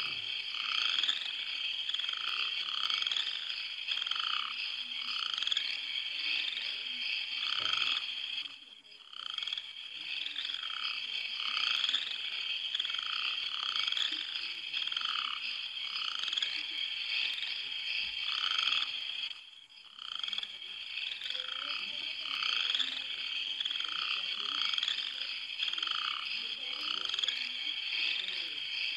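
Night chorus of frogs croaking, about one call a second, over a steady high-pitched trill. The chorus drops away briefly twice.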